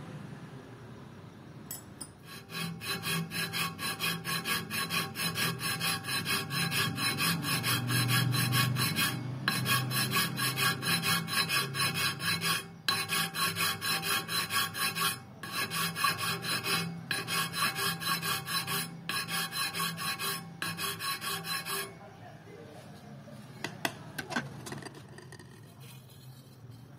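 Flat hand file rasping across a welded-up aluminium crankcase boss in rapid back-and-forth strokes, broken by a few brief pauses, and stopping about 22 seconds in. A few light clicks follow near the end.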